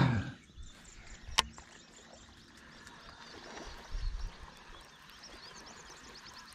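Baitcasting reel clicking into gear with one sharp click about a second and a half in as the retrieve begins. A soft low thump follows around four seconds, and faint high chirps come near the end over quiet open-air background.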